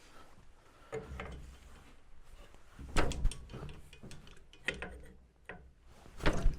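Hand tools and metal engine parts clinking and knocking in a handful of separate strikes, loudest about three seconds in and near the end, as a cylinder head is unbolted and taken off a T-40 tractor's diesel engine.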